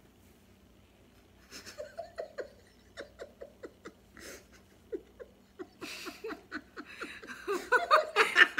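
A woman laughing, with short repeated 'ha' sounds a few times a second; quiet at first, growing louder and fuller near the end.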